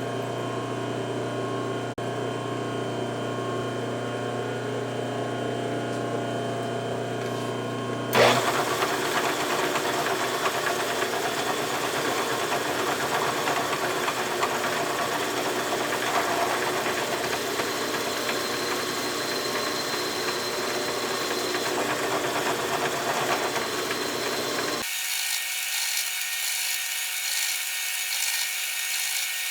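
Milling machine spindle running while drilling the #1 tap-drill hole for a 1/4-28 left-hand thread in a small vise nut. A steady machine hum changes abruptly about eight seconds in to a harsher, noisier sound, and again near the end to a thinner, higher sound.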